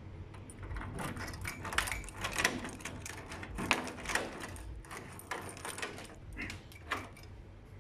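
Key being worked in a door lock: a string of light metallic clicks and rattles from the key, the lock and the keyring.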